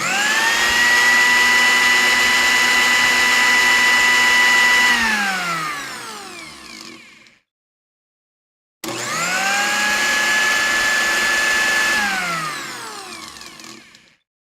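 A small electric motor switched on twice: each time it spins up quickly to a steady high whine, runs for a few seconds, then winds down in pitch and coasts to a stop. The first run is about five seconds at full speed; the second, starting about nine seconds in, is shorter and a little lower.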